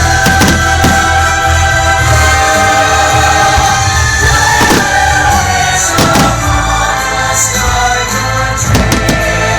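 Fireworks-show soundtrack of orchestral music with a choir singing long held chords, and firework bursts going off at intervals: twice in the first second, once near the middle, once about six seconds in and twice near the end.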